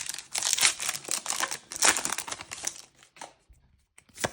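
Disney Lorcana booster pack wrapper crinkling as it is torn open and handled, dense for about three seconds, then a few light taps and one sharp click near the end.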